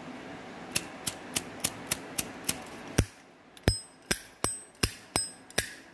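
Vintage 1968 Zippo lighter being snapped open and shut over and over: a run of sharp metal clicks about four a second, then from about three seconds in louder clicks that each carry a bright metallic ring.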